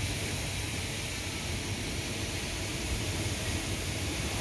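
Steady rushing noise of severe storm wind and rain, heard through a window.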